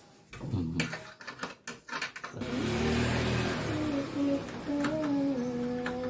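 A few light clicks and knocks from hands handling the plastic door-sensor assembly inside an opened washing machine. Then, about two and a half seconds in, a person hums a slow tune, holding a few steady notes that step up and down, with a breathy rush at the start.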